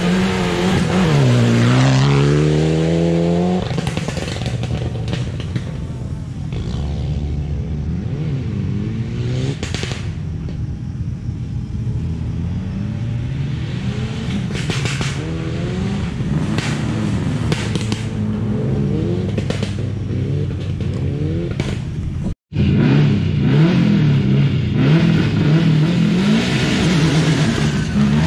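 Rally car engine pulling away hard on a gravel stage, its note dipping and then climbing steeply, followed by a string of rising sweeps as it shifts up through the gears, growing fainter. After a cut about 22 seconds in, another rally car revs loudly and unevenly at the start line.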